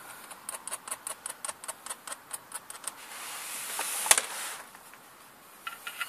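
Light metallic clicks in a quick even run, about five a second, then a hiss that swells with one sharp, loud click about four seconds in, and a few more clicks near the end, from hands working at the clutch pressure plate and its bolts.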